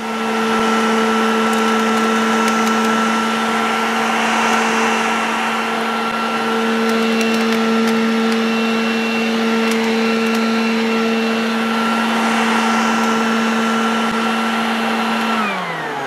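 Garden Gear 1800 W electric push lawn vacuum running steadily, a motor whine over the rush of air as it sucks up leaves. Near the end the motor is switched off and its whine falls in pitch as it spins down.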